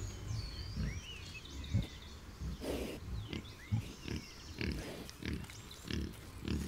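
Short, low animal grunts repeated about one to two times a second, with birds chirping and whistling above them.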